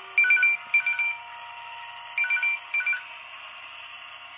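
HO-scale Atlas U30C model diesel's QSI Revolution sound decoder sounding its multi-chime air horn: four short blasts in two pairs about two seconds apart, over a steady hum.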